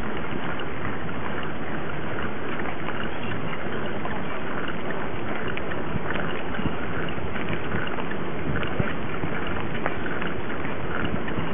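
Steady wind noise on the microphone and the rumble of a mountain bike's knobby front tyre rolling along a track, with scattered small clicks as the bike rides over bumps.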